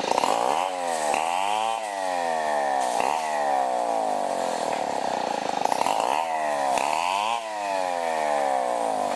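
Large chainsaw cutting lumber from a log, engine at high revs. Its pitch dips and climbs back several times as the chain works through the wood.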